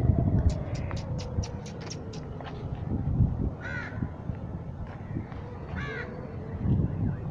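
A crow cawing twice, about two seconds apart, after a quick run of about eight sharp clicks near the start, over a steady low rumble.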